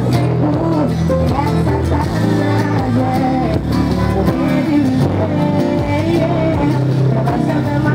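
Live amplified pop music played loud over a PA, with steady deep bass notes and a woman singing the melody.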